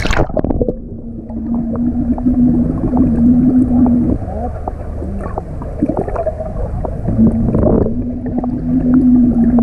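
A person blowing out bubbles underwater with a steady low hum, held about three seconds and then again near the end, over gurgling and a low watery rumble.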